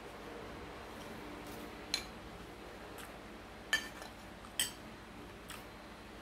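Metal spoon clinking and scraping on a ceramic plate of fried rice, with three sharp clinks about two, three and a half, and four and a half seconds in. Under it runs a steady hiss of rain.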